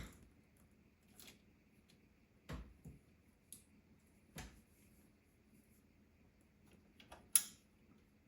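Scattered clicks and light knocks of computer parts and hardware being handled during assembly. They come about a dozen times at irregular intervals, the loudest a sharp click near the end.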